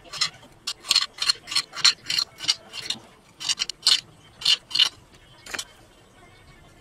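Chef's knife chopping a green vegetable on a glass cutting board: a run of sharp clicks as the blade strikes the board, about three a second, stopping about five seconds in after one last stroke.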